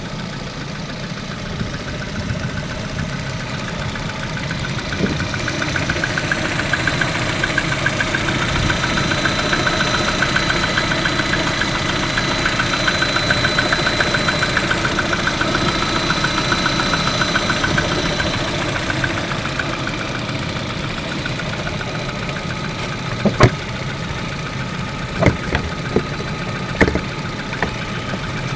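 Lada VAZ-11194 1.4-litre 16-valve four-cylinder engine running at idle with a rapid knocking that sounds diesel-like: piston knock from its lightweight piston group. It swells a little between about 5 and 18 seconds in, and a few sharp knocks stand out near the end.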